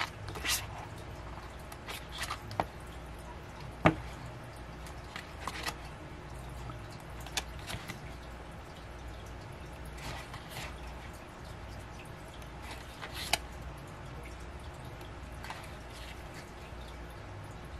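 K-pop album contents being handled: scattered light taps, clicks and rustles of paper and card, with one sharper click about four seconds in, over a low steady hum.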